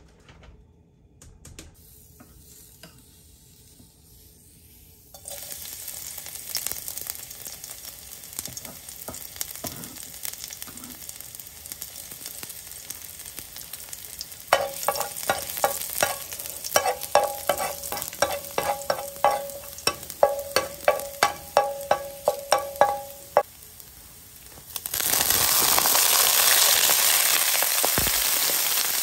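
Chopped garlic sizzling in hot oil in a frying pan, with a metal ladle stirring it in quick, regular, ringing taps against the pan for several seconds midway. Near the end a much louder sizzle starts as Chinese kale goes into the hot oil.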